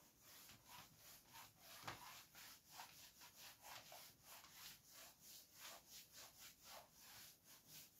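Faint, quick rubbing strokes against a writing surface, about three a second, with one slightly firmer stroke about two seconds in.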